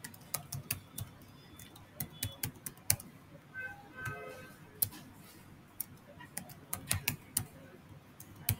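Computer keyboard typing: irregular clusters of sharp key clicks as a password is entered, with pauses between bursts.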